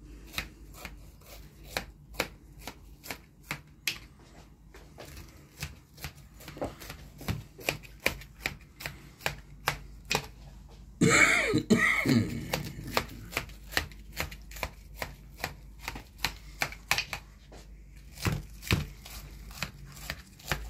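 A knife cutting through the crisp baked cheese crust of a casserole in a metal pan: a run of short crunchy clicks, a few a second. About eleven seconds in comes a louder, longer scrape.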